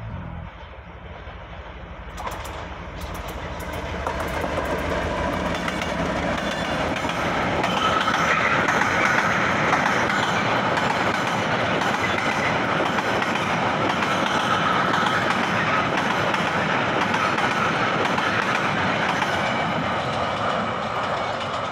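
Diesel freight train passing close by: the locomotive's low engine rumble, then a long string of flatcars loaded with rails rolling past, wheels rumbling and clacking over the rail joints. It grows louder over the first several seconds and stays loud through the rest.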